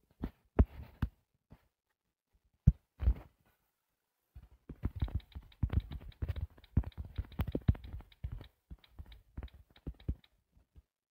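Fingertips tapping on a tablet's touchscreen, heard as soft low thuds. A few separate taps come in the first three seconds, then a quick, uneven run of taps from about four seconds in as text is typed on the on-screen keyboard.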